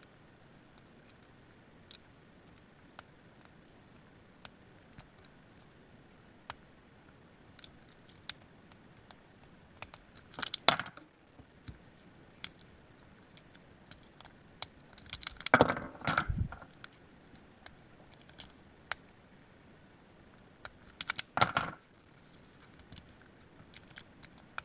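Lock picks working the pin stacks of Master Lock 141 four-pin padlocks, giving scattered light metallic clicks, with three louder metal clatters as the padlocks are handled.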